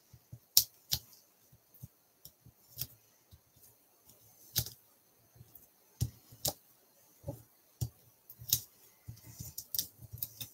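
Light, irregular clicks and taps of paper crafting: foam adhesive dimensionals being peeled from their sheet and pressed onto a small die-cut cardstock piece on a craft mat.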